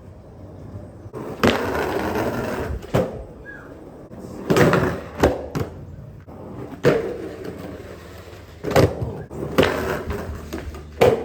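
Skateboard rolling, its wheels giving a steady rolling rumble broken by several sharp clacks of the board, perhaps half a dozen in all.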